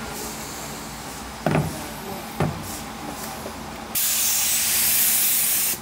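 Gravity-feed air spray gun spraying paint: a couple of brief puffs, then a loud, steady hiss of spraying from about four seconds in. Two knocks come before it, about a second apart.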